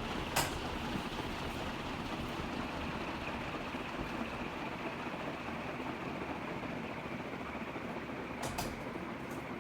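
Canarm CP56 industrial ceiling fan running on high: a steady rush of moving air from its blades. A brief click sounds about half a second in and a couple more near the end.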